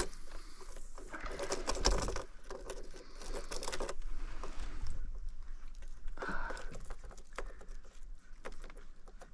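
Irregular rustling and clicking of a fish landing net being handled with gloved hands, heaviest in the first few seconds and sparser after.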